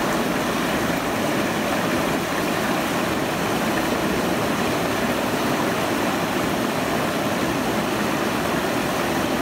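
Steady, even rush of flowing water in the fish pool.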